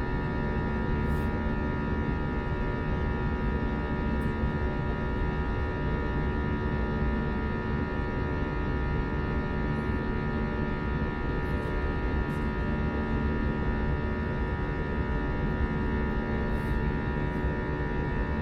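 Jet engine noise inside an Airbus A321 passenger cabin in flight: a steady drone made up of several held tones over a low rumble of engine and airflow noise.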